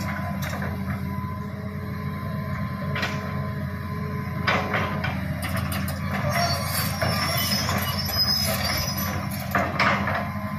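Hitachi hydraulic excavator's diesel engine running steadily, with three sharp knocks: about three seconds in, at four and a half seconds, and near the end.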